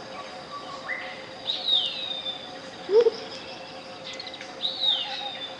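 Tropical jungle birds calling: twice, about three seconds apart, a long high call that falls in pitch, and about halfway through a short, loud, low call. Under them runs a steady pure tone, the track's 528 Hz tone, with a soft hiss.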